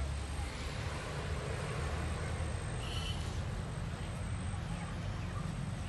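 A steady low rumble with an even hiss above it, and a brief faint high chirp about three seconds in.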